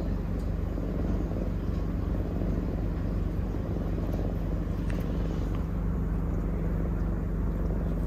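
Eurasian lynxes purring while their kittens nurse: a steady, low pulsing rumble.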